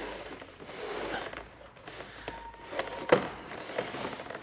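Handling sounds as the solar collector's black absorber pipe is worked into the notches of its clear plastic frame and the unit is turned on the table: low rubbing and scraping, with a few small clicks and one sharp click about three seconds in as the pipe snaps into a notch.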